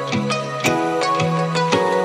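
Background music: held pitched notes over a changing bass line, with a steady beat of about two strikes a second.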